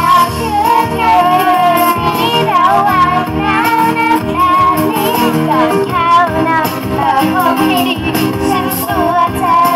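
Young girls singing a pop song through microphones and small PA speakers, over amplified backing music.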